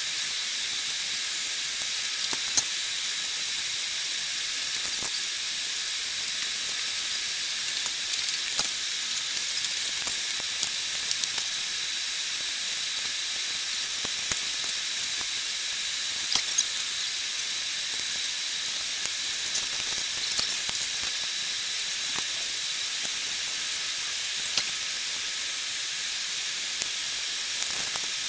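Airbus A380 cabin noise during taxi, sped up ten times into a steady high hiss with faint scattered clicks.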